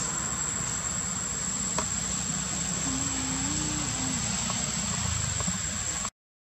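Steady forest ambience: a continuous high-pitched insect drone over a low rumble. The sound cuts out completely for about half a second near the end.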